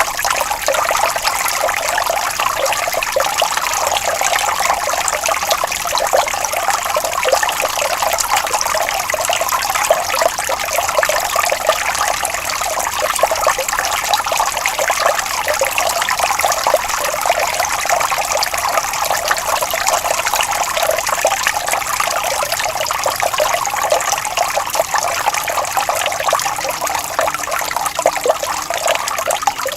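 Water flowing and trickling steadily over stones, an even splashing babble.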